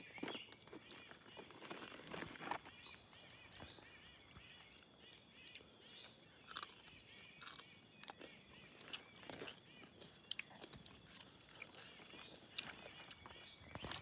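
Quiet forest background: a short high chirp repeats about once a second over a faint steady high tone. Soft crackles and rustles come from hands pulling apart grilled birds on banana leaves.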